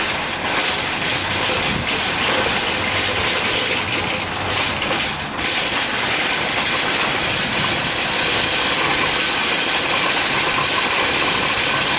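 Steady, loud rushing noise of a vehicle on the move, without a break for the whole stretch.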